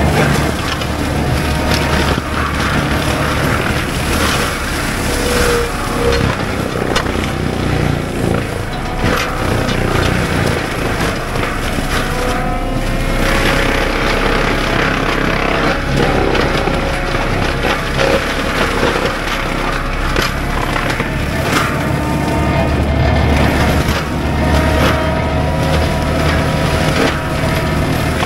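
Cat 299D3 compact track loader running hard with its Fecon BlackHawk forestry mulcher head spinning, grinding brush and saplings into chips. A continuous heavy engine and drum drone, with a whine that drifts up and down in pitch and scattered sharp cracks of wood being struck.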